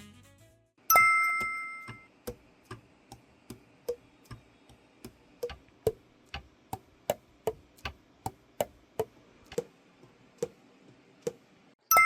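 Alto saxophone keys being pressed and released, so that the pads close on their tone holes with soft clicks and short hollow pops. The clicks come two or three a second, slowing near the end, and they follow a sharp ringing metallic strike about a second in.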